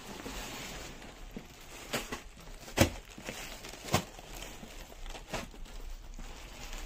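Shop background noise with a few scattered sharp clicks or knocks, four in all, the loudest near the middle.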